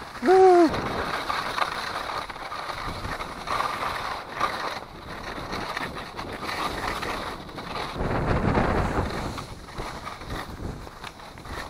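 Wind rushing over the microphone with skis sliding over crusty snow while towed by a traction kite, the noise growing louder and rougher about two-thirds of the way through. A short, loud, high-pitched cry rises and falls just after the start.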